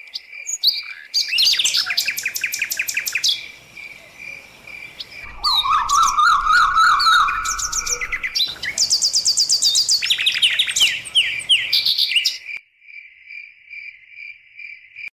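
Recorded birdsong laid over an outro card: several different birds chirping and trilling over a steady, pulsing high note. The songs change abruptly every few seconds as the recordings are cut together. The chirping stops about twelve and a half seconds in, leaving only the pulsing note.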